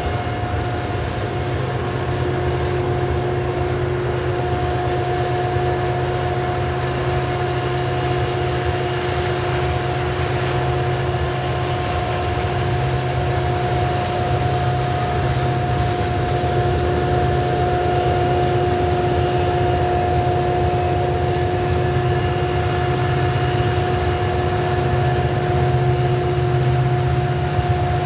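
Loaded coal hopper cars rolling past on the rails with a steady rumble, under a constant whine from the train's GE diesel locomotives.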